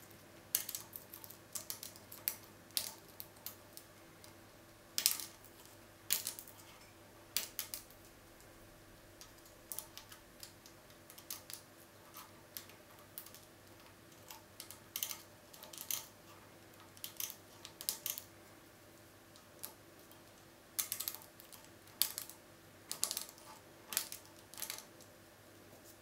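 Lock pick clicking and scraping against the wafers inside a Bricard Bloctout wafer-tumbler lock cylinder as it is picked under tension: irregular small metallic ticks, singly and in quick clusters.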